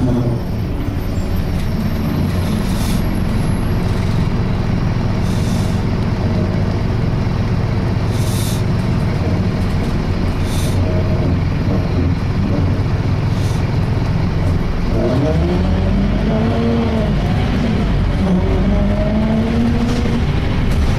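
Interior sound of a Scania K230 single-deck bus under way: steady low engine and road rumble, with a few short hisses in the first half. Near the end a pitched groan rises and falls, the loud groaning noise this bus makes.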